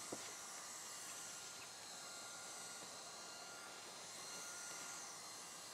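Handheld hot air gun blowing steadily, a faint even hiss with a slight whine, as it heats a self-adhesive bitumen membrane patch to activate the bitumen.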